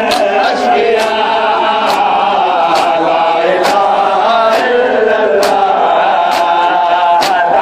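Crowd of men chanting a noha together, while hands strike chests in unison in matam, a sharp slap about once a second keeping the beat.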